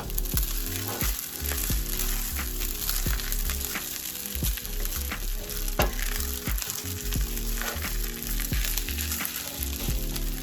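Rice and egg sizzling in a hot frying pan as they are stirred together, with a utensil scraping and knocking against the pan again and again.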